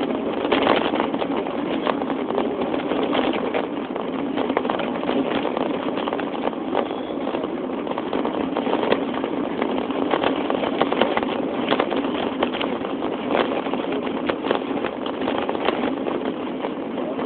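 Steady engine and vehicle noise with frequent short clicks and knocks through it.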